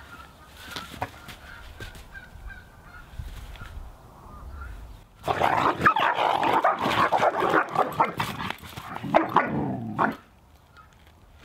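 Dog barking in a loud outburst of about five seconds, starting about halfway through.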